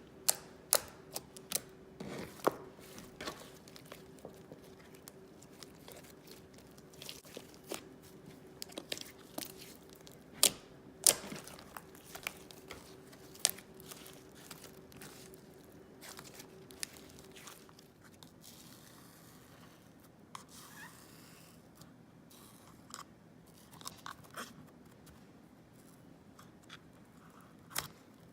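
Slime being squished and poked, with irregular sharp pops and clicks.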